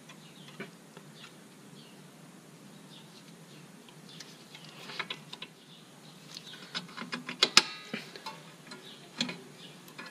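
Small metal clicks and rattles of a drum brake's outside spring being hooked back into place by hand, thickening into a quick cluster of clicks with one sharp snap about three-quarters of the way through.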